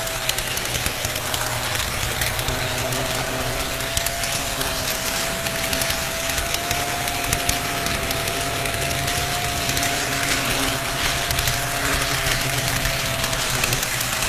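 HO scale model train rolling along the track, heard from a camera riding on it: a steady, slightly wavering motor whine over a rattle of wheels on rails, with many small clicks.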